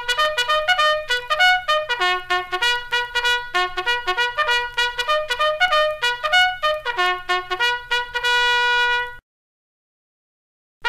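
Military bugle call: a quick run of short, tongued notes ending on one long held note. It cuts off abruptly about nine seconds in, and after a stretch of silence the call starts over at the end.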